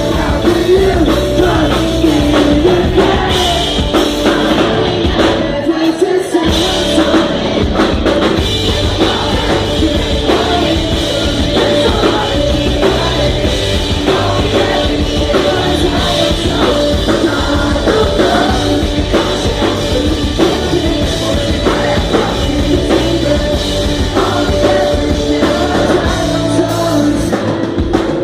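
Loud live rock band performance: a singer over a drum kit and the band. The bass and drums drop out briefly about six seconds in.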